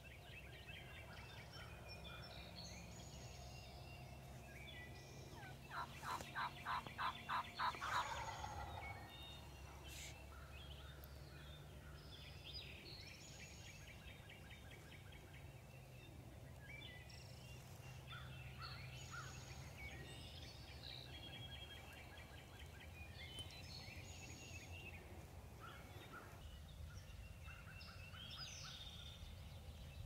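A wild turkey gobbler gobbling once from the roost, a fast rattling run of notes about six seconds in that lasts roughly two seconds. Small birds chirp throughout.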